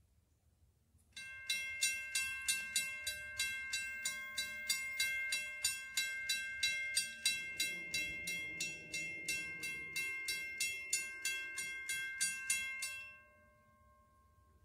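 Railroad grade-crossing bell ringing about three strikes a second, the warning for an approaching train. It starts about a second in and stops near the end, the last ring fading away.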